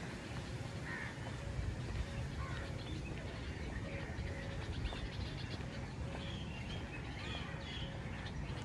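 Birds calling now and then in short, scattered calls over a steady low background rumble.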